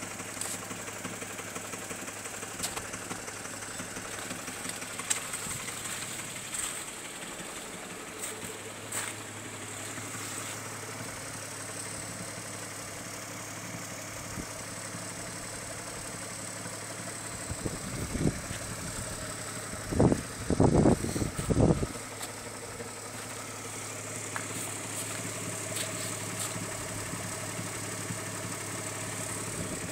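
Opel Omega B engine idling steadily, its exhaust faulty. A few loud, irregular low bursts come about two-thirds of the way in.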